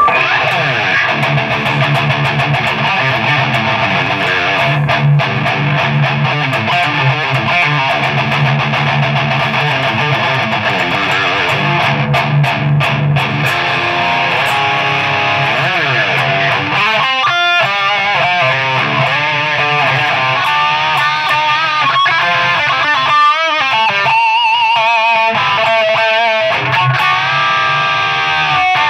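Distorted electric guitar, a self-built guitar with a Dimebucker humbucker pickup, playing a riff. Low chugging rhythm parts fill the first half; from about two-thirds of the way in come single-note lead lines with wide vibrato.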